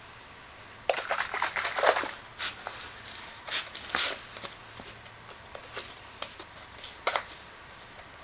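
Irregular clicks, scrapes and rustling of objects being handled, busiest between about one and four and a half seconds in, then a few scattered clicks with a sharper one near the end.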